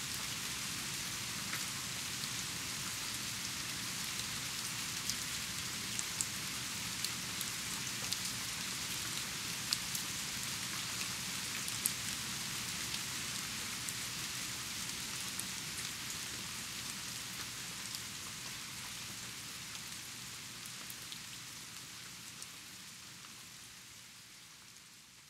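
Steady rain falling, with scattered sharper drop hits standing out from the hiss. It fades out slowly over the last third.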